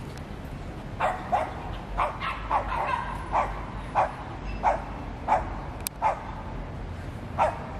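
A small dog barking repeatedly, about a dozen short sharp barks starting about a second in, over a steady low background rumble.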